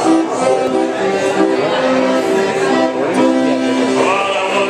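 Accordion playing sustained chords live, the chord changing about once a second.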